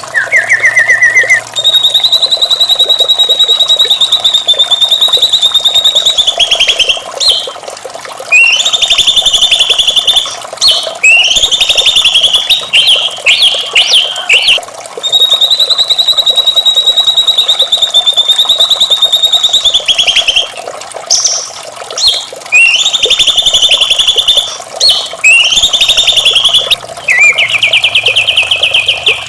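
White-rumped shama singing: long, fast rattling trills held for about five seconds at a time, alternating with shorter choppy phrases, over a steady hiss of water.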